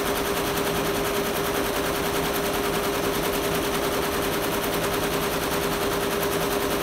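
Commercial multi-needle embroidery machine stitching: a rapid, even clatter of needle strokes over a steady hum.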